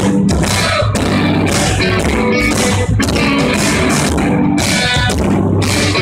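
A live rock band playing loud: two electric guitars, bass guitar and drums, with a steady beat of cymbal hits.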